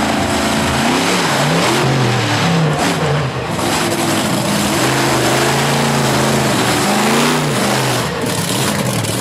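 Raminator monster truck's engine revving up and down repeatedly as the truck drives over dirt.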